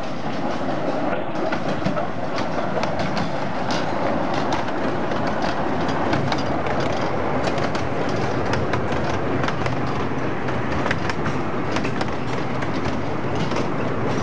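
A 10.25-inch gauge 2-4-2T miniature steam locomotive and its carriages running past: a steady rumble dotted with many sharp clicks from the wheels on the track, a little louder in the middle as the engine passes close.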